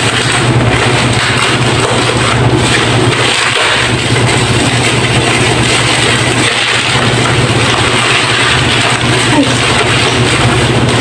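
A loud steady low machine hum with a hiss over it, and some rustling and handling noise as packaging is unwrapped.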